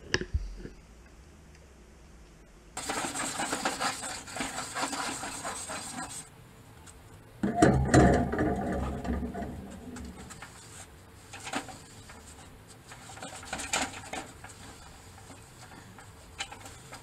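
Scraping, rubbing and clattering of work on a charcoal kettle grill as its grate is handled and wiped with a cloth. The loudest stretch comes about halfway through, and scattered knocks follow.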